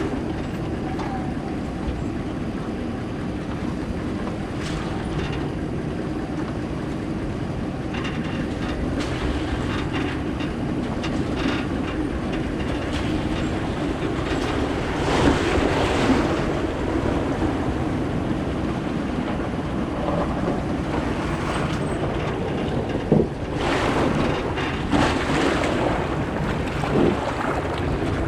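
Truck driving over a rough dirt road, a steady rumble of engine and tyres from inside the cab. Water splashes up against the truck as it drives through puddles, louder about halfway through and again near the end, with one sharp knock shortly before the second splash.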